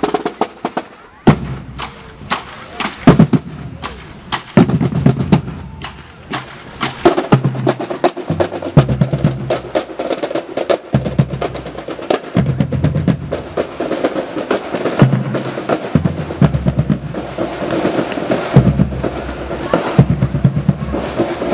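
Marching band drumline playing a cadence: snare drums with rolls and bass drums beating. The sound grows fuller and more continuous from about seven seconds in.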